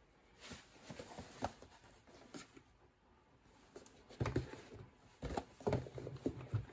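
Cardboard toy boxes being handled and set down on a desk: scattered light knocks and rustles, turning busier and louder from about four seconds in.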